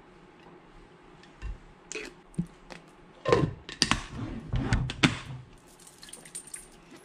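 Plastic lid being fitted onto a glass food container of chicken wings in sauce, with a run of loud clunks and clicks about three to five seconds in as it is closed and handled, then lighter knocks as the container is shaken.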